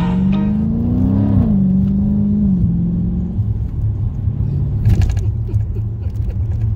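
Dodge Challenger Scat Pack's 392 HEMI V8 with its mid muffler deleted, heard inside the cabin. The exhaust note rises as the car pulls, falls sharply about a second and a half in and again near three seconds, then settles into a steady low drone. A single sharp knock comes about five seconds in.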